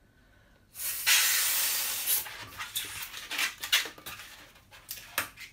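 A latex twisting balloon being inflated: a loud hiss of rushing air about a second in that fades over a second or so, then a string of short rubbery squeaks and rubs as the inflated long balloon is handled at its neck.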